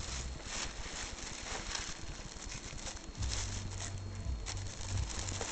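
A cat nosing around with its head inside a thin plastic shopping bag, the plastic crinkling and rustling in irregular bursts. A low rumble joins in about three seconds in.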